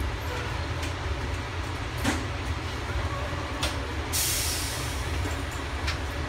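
Ride noise inside an AirTrain JFK car running along its guideway: a steady low rumble with a few sharp clicks, and a short hiss about four seconds in.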